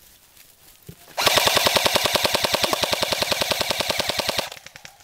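Airsoft gun firing one long full-automatic burst, a rapid even rattle of about fourteen shots a second lasting a little over three seconds, starting about a second in.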